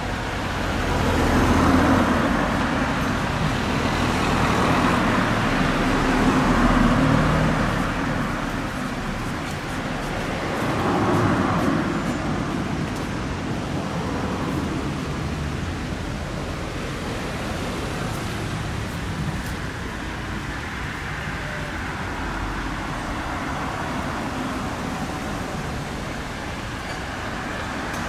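City street traffic: cars passing, with several swells as vehicles go by in the first dozen seconds, then a steadier traffic hum.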